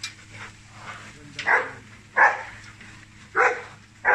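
Large dog barking, four barks spaced about a second apart.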